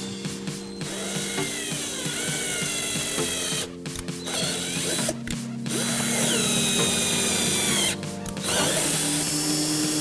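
Cordless drill driving an M8 tap into drilled holes in a washing machine's plastic bearing support, cutting threads. The motor whines in runs that rise and fall in pitch, stopping briefly three times.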